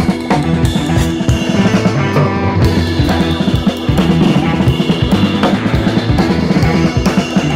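Background music with a prominent drum kit beat.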